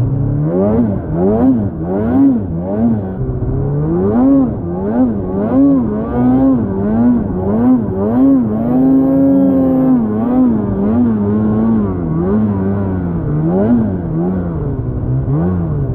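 2024 Polaris 9R Khaos two-stroke snowmobile engine, fitted with an RPM Titanium chambered muffler, being revved up and down over and over as the rider works the throttle through deep powder. The revs are held steady for a second or so past the middle.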